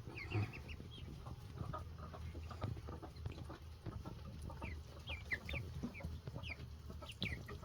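Young meat chickens peeping and cheeping: many short, scattered high chirps, over a low steady hum.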